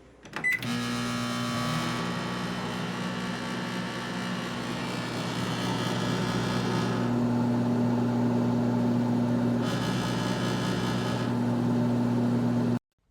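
Galanz compact microwave oven running: a click and short beep as it starts, then a steady loud hum and whir of the running oven, cutting off abruptly near the end as it stops.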